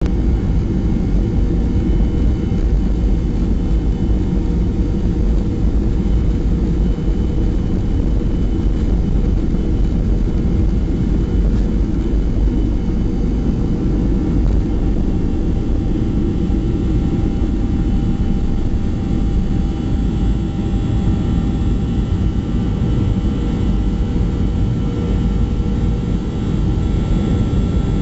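Jet airliner's underwing turbofan engines at takeoff power, heard from inside the cabin through the takeoff roll and lift-off: a steady deep rumble with a few steady higher whining tones over it.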